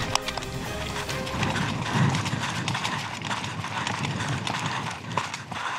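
Running footsteps on dry dirt and grass: a quick, steady patter of footfalls, picked up close by a camera worn by the runner.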